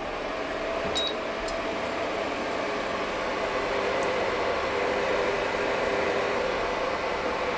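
Kitfort induction cooktop running under a pot of water, its cooling fan giving a steady whirring hum with faint steady tones in it. Two short beeps from the touch controls about a second in.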